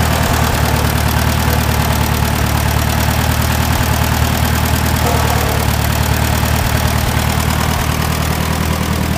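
International Harvester 350 Utility tractor engine running steadily at idle.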